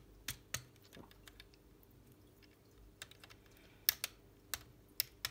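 Hard plastic LEGO Technic parts clicking and tapping as they are handled and pressed into place on a model's frame: a scattered run of sharp clicks, most of them in the second half.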